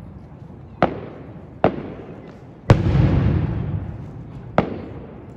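Aerial firework shells bursting overhead: four sharp bangs, the third the loudest, each followed by a rumble that fades away.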